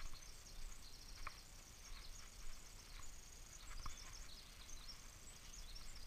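Faint, high-pitched bird chirps scattered through quiet forest ambience, with a few soft footsteps on a wooden boardwalk.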